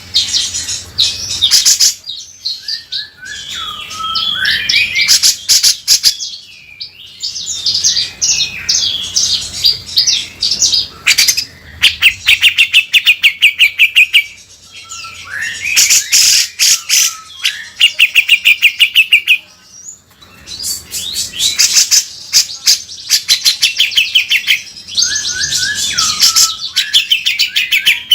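Cucak jenggot (grey-cheeked bulbul) calling loudly: runs of harsh, rapid rattling notes lasting a few seconds each, broken by short gliding whistled notes and brief pauses.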